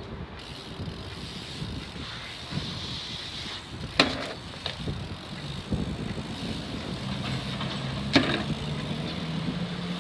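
BMX bike being handled or ridden, its freewheel hub ticking, with two sharp bangs about four seconds apart. A low steady hum comes in over the last few seconds.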